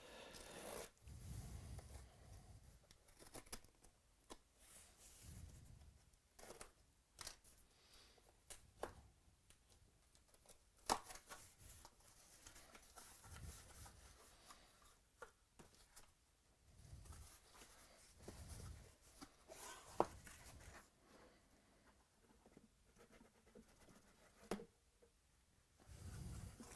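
Faint handling noise from the trading-card case being opened: scattered sharp clicks and short bouts of tearing and rustling packaging.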